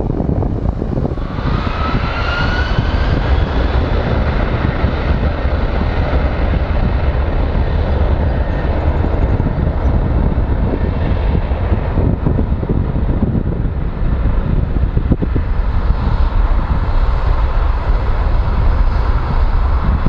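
Boeing 767-300ER's twin turbofan engines spooling up to takeoff power. About a second in, a rising whine climbs over the noise, then gives way to a loud, steady jet rumble as the airliner rolls down the runway.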